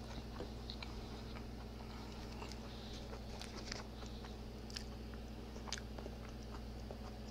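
Mouth-close chewing of a deep-fried, Hot Cheeto–crusted carne asada burrito, lips closed: soft, scattered wet mouth clicks and small crunches.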